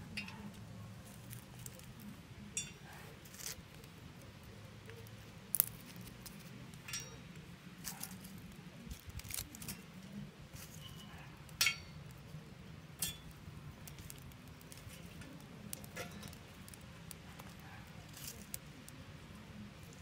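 Small sticks and wood scraps being dropped into a stainless steel secondary-combustion wood stove, clicking and clinking against the metal while the fire crackles. The sharp ticks come at irregular intervals, with a couple of louder knocks, over a low steady background hum.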